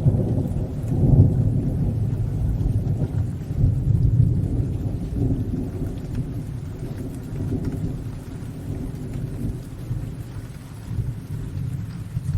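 A thunderclap rolling on as a long low rumble, swelling again about a second in and around four seconds, then slowly fading, over steady rain.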